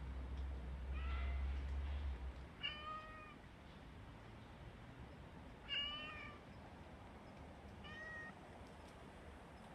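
A cat meowing: four short meows, two to three seconds apart. A low rumble runs under the first two seconds.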